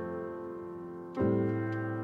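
Piano chords held and slowly fading in the closing bars of a pop ballad, with a new chord struck about a second in.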